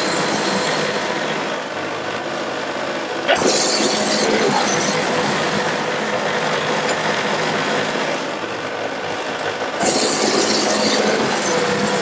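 Wood-Mizer LT70 portable band sawmill running and sawing through a log: a loud, steady rush of blade and engine noise, with a harsher hiss rising about three seconds in and again near the end.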